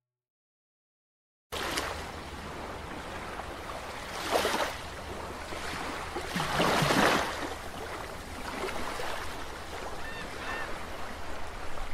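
After a second and a half of silence, a steady rushing outdoor noise sets in, with two louder surges about four and seven seconds in.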